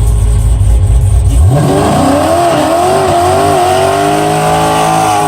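A deep rumble, then about a second and a half in a car engine revs sharply up and is held at high revs, its pitch wavering up and down, with a hiss of tyres spinning on the pavement under it, as in a burnout or donut.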